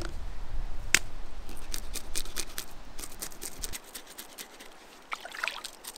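Scales being scraped off a pike: a run of quick, scratchy strokes, some sharper than others, with a low rumble under the first few seconds.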